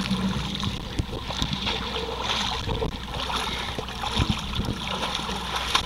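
Muddy water sloshing and splashing as people wade through a shallow pool, with scattered small knocks.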